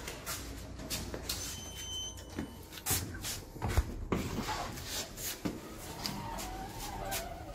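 Knocks, clatter and shuffling as plastic pet carriers are carried out of an elevator and set down on a carpeted floor, with a string of short thuds.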